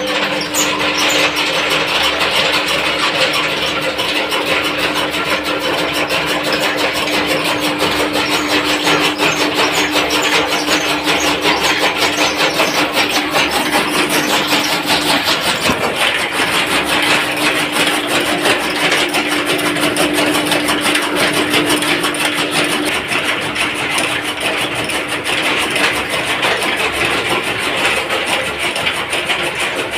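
Powered chaff cutter (fodder chopper) running, its flywheel-driven blades chopping green fodder as it is fed in. It makes a loud, steady machine hum with a fast, even chatter of cuts.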